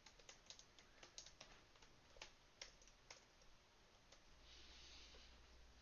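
Faint typing on a computer keyboard: quick, irregular key clicks that die away after about three seconds.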